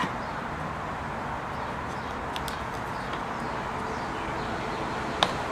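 Steady background hiss with a few small clicks as ignition-module wires and a plug connector are handled, and one sharper click near the end.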